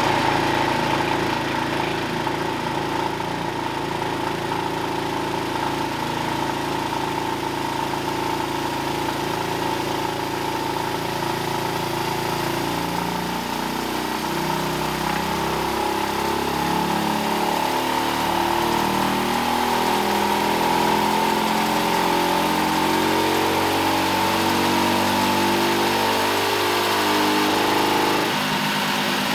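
Predator Ghost 212cc single-cylinder four-stroke racing engine making a full dyno pull under load, its revs climbing steadily from about 3,200 to about 6,000 rpm, with the pitch changing near the end as the pull finishes. A steady high whine sits over the engine note.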